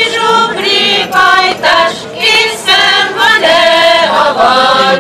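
A village folk choir, mostly women's voices, singing a Hungarian folk song with no instruments.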